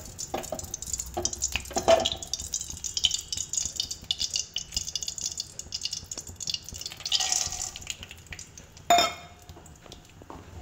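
Hot ghee crackling and spitting in an aluminium kadhai on a gas burner, with a couple of light knocks. Near the end there is a sharp metallic clatter as the chopped cashews, almonds and pistachios are tipped into the pan.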